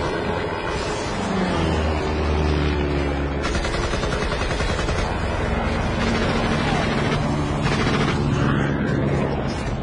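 Sustained rapid gunfire, a dense unbroken rattle of shots.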